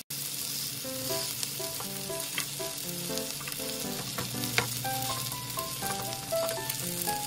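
Pea, corn and cheese patties sizzling in oil in a nonstick pan, with a spatula scraping and tapping the pan now and then. A simple melody plays softly underneath from about a second in.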